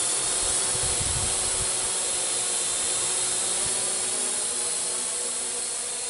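Parrot AR.Drone 2.0 quadcopter's electric motors and propellers buzzing steadily in flight, with a low rumble about a second in.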